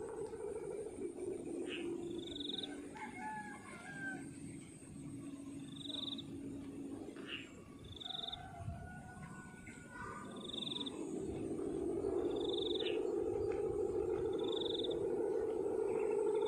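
Steady pulsing drone of Balinese kite hummers (guangan) vibrating in the wind overhead, growing louder about twelve seconds in. Short high chirps repeat about every two seconds.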